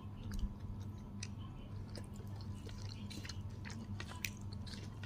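Close-up chewing and biting of fried chicken with sauce: irregular wet mouth clicks and small crunches. A steady low hum runs underneath.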